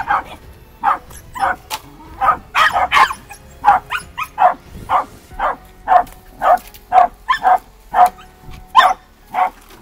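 Hunting dog barking in a quick, steady run of sharp barks, two to three a second, baying at quarry holed up in a den.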